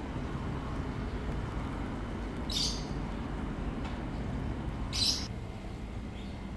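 Short high bird chirps, two plainly about two and a half seconds apart with the second the louder, and a faint third soon after, over a steady low outdoor rumble.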